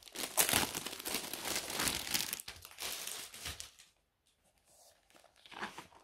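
Clear plastic packaging crinkling as it is pulled off a rolled diamond painting canvas, stopping about three and a half seconds in. A short rustle of the canvas being handled near the end.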